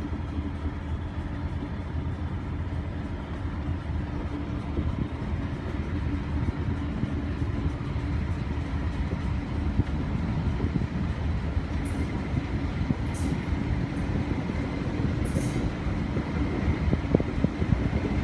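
Diesel engine and running gear of a Southern Region 'Thumper' diesel-electric multiple unit under way, a steady low engine hum over the rumble of wheels on the track, heard from a carriage window and growing slowly louder. A few brief high-pitched squeaks come in the second half, and sharper knocks near the end.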